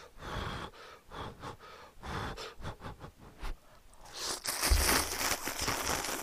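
Close-miked slurping and chewing of ramen noodles, in short bouts, with a longer, louder slurp starting a little after four seconds in.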